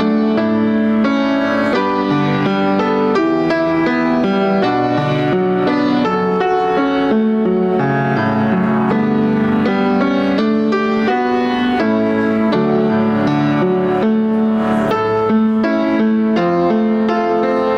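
Instrumental keyboard music: slow chords and a melody played steadily, without singing.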